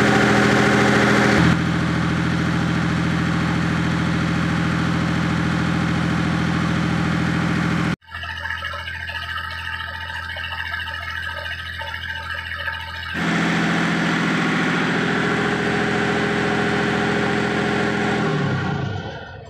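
A lifeboat's Si Yang 380J-3 four-stroke marine diesel engine running steadily on its routine test run, its note shifting a couple of times; near the end it slows and dies away.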